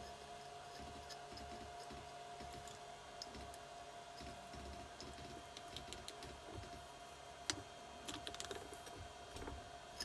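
Faint clicks and light taps of small metal engine parts and tools being handled, with a sharper click about seven and a half seconds in and a quick flurry of small clicks near the end, over a steady faint hum.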